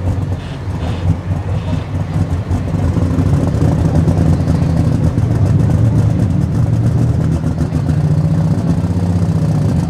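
Super stock pulling tractor's engine running loud and steady, growing louder about three seconds in and holding there.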